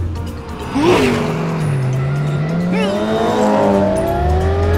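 Cartoon race-car engine sound effects. An engine revs sharply about a second in, its pitch dipping and then rising steadily as the car accelerates, and more rising engine tones layer in toward the end as the cars speed up.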